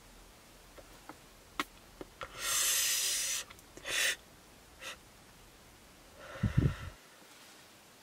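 Person smoking a blunt: a few faint lip smacks while drawing on it, then a long hissing exhale of smoke, a shorter breath about a second later, and a short low throaty sound near the end.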